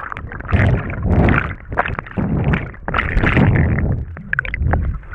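Water sloshing and gurgling around the camera at the surface during snorkelling, in loud low surges with scattered clicks and knocks.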